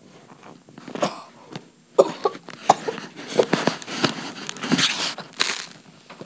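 A boy coughing, sputtering and gasping in short breathy bursts after taking a mouthful of malic acid powder, reacting to its intense sourness; the bursts come thick and fast from about two seconds in.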